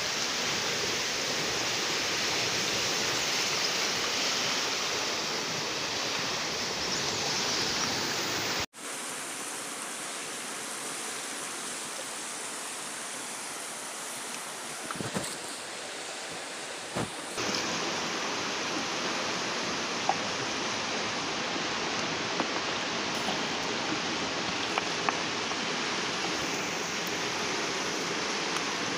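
Steady rushing of a fast-flowing river. The sound breaks off abruptly about nine seconds in and comes back quieter and thinner. It returns to full level some eight seconds later, with a few faint knocks.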